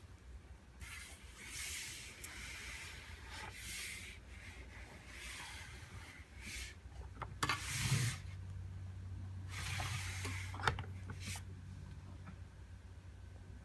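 Rustling and rubbing of a sixth-scale Batman figure's textured fabric cape as hands smooth and arrange it, in several short stretches. In the second half come a few sharp knocks and scrapes as the figure's plastic base is gripped and turned on the tabletop.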